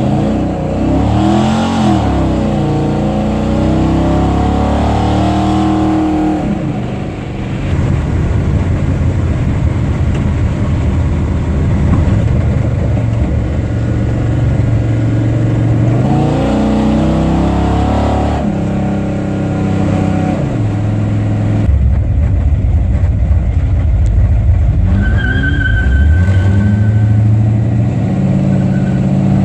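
Car engine running, rising in pitch and falling back three times as it is revved or accelerated, with steadier running between the rises.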